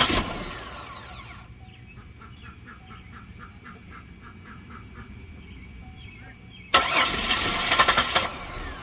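2008 Buick Lucerne's starter cranking the engine twice without it catching, once at the start and again about seven seconds in: crank with no start, a symptom of its recalled fuel pump relay failing. Faint regular ticking about three times a second can be heard between the two cranks.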